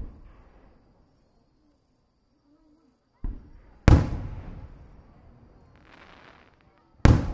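Aerial firework shells bursting overhead. There is a bang at the start, then a softer thump about three seconds in, followed moments later by a loud boom that trails off slowly, and another loud boom near the end.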